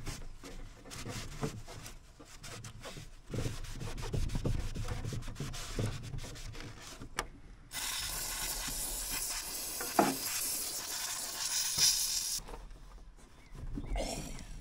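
Fiberglass lawn tractor hood being hand-sanded with 80-grit sandpaper in quick scratchy strokes. About halfway an aerosol can sprays onto it in a steady hiss lasting about four and a half seconds. A rag then rubs over the surface.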